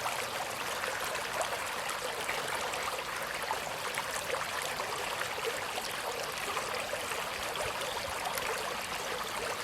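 Small brook babbling and trickling over rocks, a steady rush of water flecked with many small splashes and gurgles.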